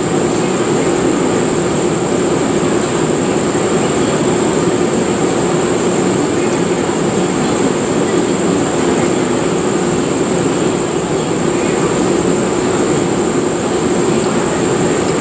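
Steady, loud droning noise with a constant low hum and a thin, steady high-pitched tone above it, unchanging throughout; no gunshots.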